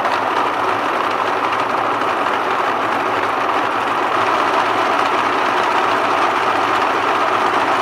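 A 3D-printed planetary gearbox and Turnigy SK3 6354 260 kV brushless motor driving a robot wheel at full speed, about 15,000 electrical RPM on a VESC controller. It makes a loud, steady mechanical whir.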